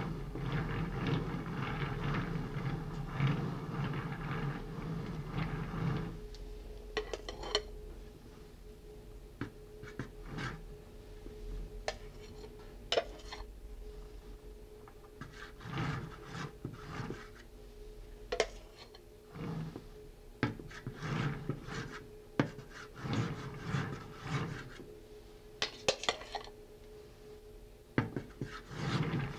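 Metal spatula smoothing whipped cream around the sides of a cake on a turntable: soft scraping and rubbing, continuous for about the first six seconds, then in short separate strokes with occasional light clicks and taps.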